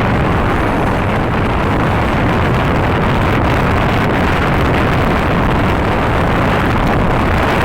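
Steady loud rumble of a moving vehicle with wind buffeting the microphone; no horn is sounding.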